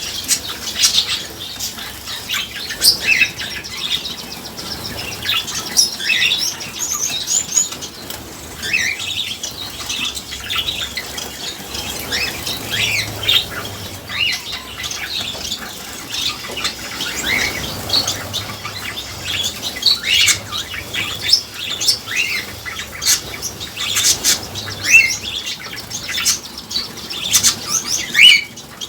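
Gouldian finches and society finches bathing: quick bursts of wing fluttering and splashing in the water, with frequent short, high chirps.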